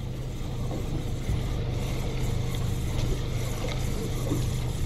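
Boat engine running steadily with an even low hum, under a wash of water and wind noise.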